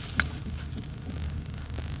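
A low steady hum, with a single drip of wet charcoal-sand slurry about a quarter second in as the hands lift clear of the basin.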